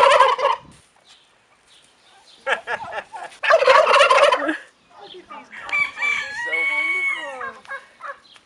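Domestic turkeys gobbling: two loud rapid, rattling gobbles, followed near the end by a longer call about two seconds long, held at a steady pitch.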